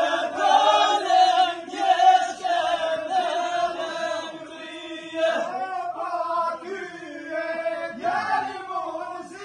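A group of voices singing a chant-like folk song together, over a steady held note beneath the melody.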